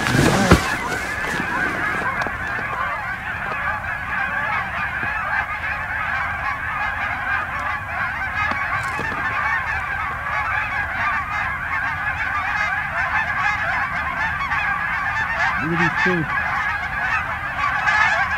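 A large flock of wild geese calling overhead, many overlapping honks in a continuous chorus, with a brief knock about half a second in.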